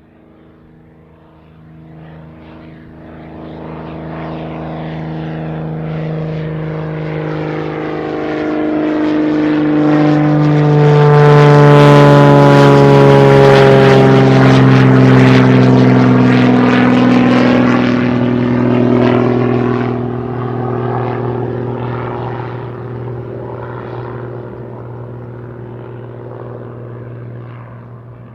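Propeller-driven airplane flying past overhead: its engine and propeller note grows louder as it approaches, is loudest about twelve seconds in while its pitch drops, then fades away as it recedes.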